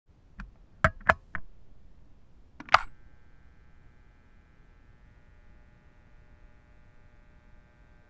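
Cheap electric kettle picked up through a contact microphone on its steel body: a few quick plastic clacks, then one loud sharp click about three seconds in as the switch lever is pressed down. A steady, faint electrical hum of several even tones follows as the heating element comes on.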